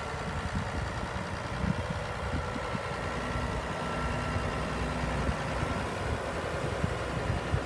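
Farm tractor engine running at a steady idle.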